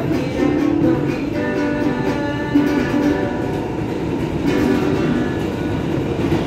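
A busker's guitar playing inside a moving R160B subway car, over the steady running noise of the train.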